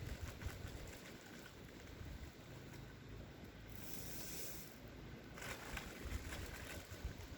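Wind gusting on the microphone in a blizzard, an uneven low rumble, with a brief rustle about six seconds in.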